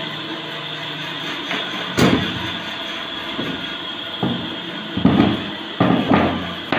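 Wooden boards of a folding book stand knocking against each other and the workbench as they are handled and set in place: about six sharp knocks, the first about two seconds in and most of them bunched near the end.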